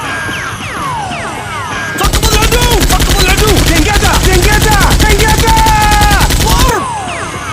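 Rapid automatic gunfire sound effect: one continuous burst that starts about two seconds in and cuts off sharply near the end. Before it, quieter falling whistling tones.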